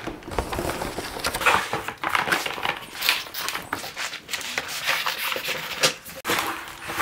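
Cardboard packaging scraping and rustling, with a few sharp knocks, as a solar panel is slid out of its box.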